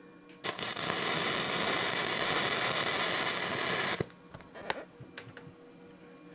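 Electric arc welding crackling, one continuous bead of about three and a half seconds that stops abruptly, as a seam is welded to seal a steel billet shut against oxygen; a few faint clicks follow.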